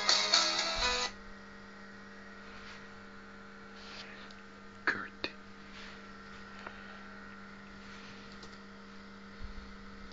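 Guitar music playing from a MacBook stops abruptly about a second in, leaving a steady electrical hum. Two sharp knocks sound about halfway through, with a few faint clicks after.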